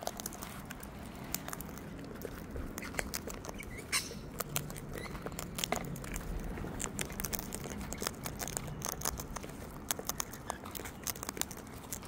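Sulphur-crested cockatoos cracking sunflower seeds and rummaging their beaks through a tray of seed mix: an irregular, continuous run of small clicks and crackles.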